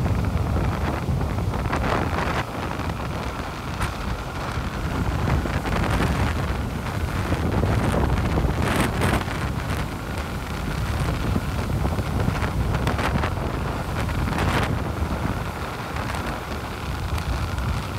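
Heavy storm-driven surf breaking and washing up the beach in swelling surges, with strong wind buffeting the microphone in a constant low rumble.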